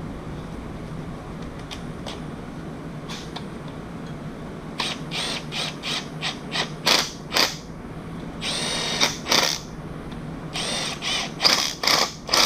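Ratchet wrench clicking in short back-and-forth strokes as bolts are run into the camshaft retainer plate on an LS engine block, starting about five seconds in after a few light clicks.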